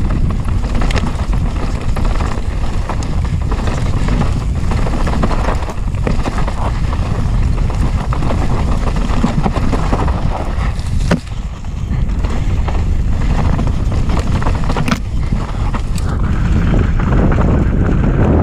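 Heavy wind noise on the microphone of a camera carried along on a fast mountain bike descent, over the constant clatter of the bike on rough trail, with a few sharper knocks, one about eleven seconds in.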